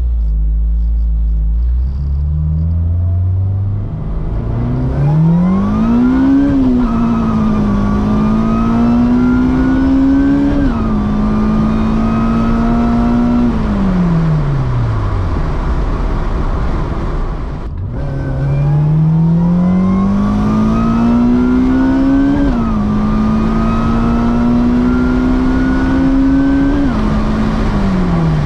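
Supercharged Acura RSX engine, heard from inside the car, pulled hard twice at full throttle. Each time the revs climb, drop sharply at two quick upshifts, and climb again, then fall away as the throttle is lifted.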